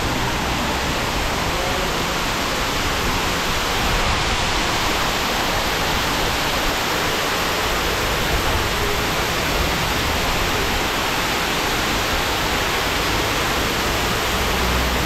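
Water-wall fountain: water pouring in a thin curtain off a ledge and splashing into a shallow trough below, a steady, even rush.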